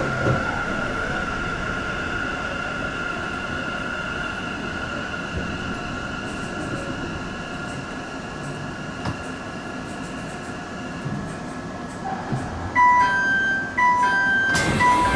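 Sendai Subway 2000 series train slowing to a stop at a platform: a steady electric motor whine over running rumble that fades out as it comes to rest. Near the end a repeating electronic chime of short beeps on three notes starts, with a loud burst of noise about two seconds before the end.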